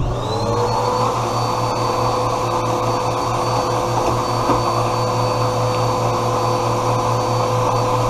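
Vacuum cleaner switching on and spinning up, then running at a steady whine with a rush of airflow as its hose works over dusty refrigerator condenser coils.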